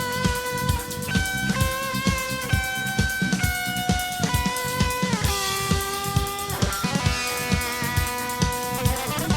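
Electric guitar with overdrive and delay playing a sustained lead melody with several bent notes, over a rock backing track of drum kit and bass with a steady kick drum.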